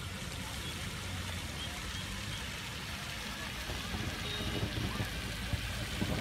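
Steady hiss of falling water from the pond's spray fountains. Low, gusty rumbles on the microphone grow stronger from about four seconds in.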